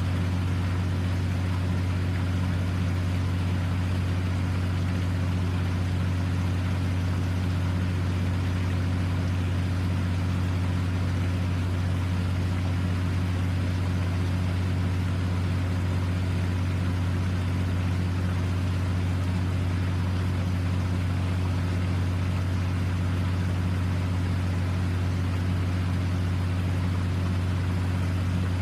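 A steady, unchanging low mechanical hum, like an engine or motor running at a constant speed.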